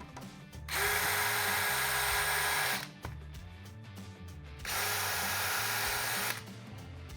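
Power drill running at steady speed in two bursts, about two seconds and then about a second and a half, with a pause between.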